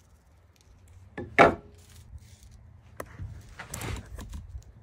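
Workshop handling sounds: a sharp knock on wood about a second and a half in, then a click and a short rustle near four seconds, as a long curled hand-plane shaving is handled.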